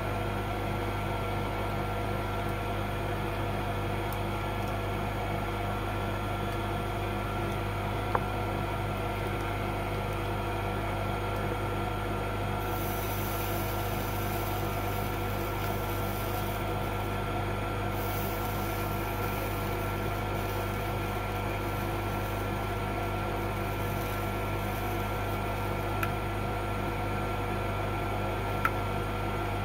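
Solder fume extractor fan running with a steady hum. A thin high hiss comes in about halfway through and fades out later, and there are a few faint ticks.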